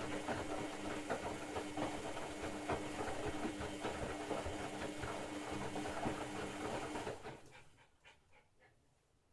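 LG WD-80150TUP front-loading washing machine in its rinse cycle: a steady motor hum with water sloshing and splashing in the drum, which dies away about seven seconds in, leaving a few faint ticks.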